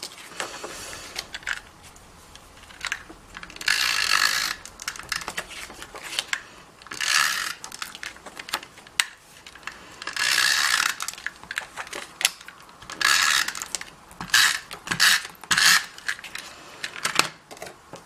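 Stampin' Up SNAIL tape runner drawn across the back of patterned paper, making a ratcheting whirr in repeated strokes of about half a second to a second each. Several quicker strokes and small clicks follow near the end.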